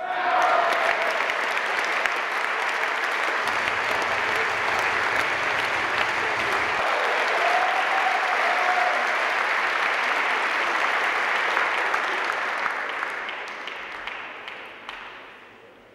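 Audience applauding after a table tennis rally. The clapping starts abruptly, holds steady for about twelve seconds, then dies away.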